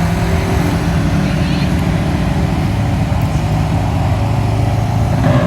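Off-road truck engine running with a steady low rumble, with a brief louder surge near the end.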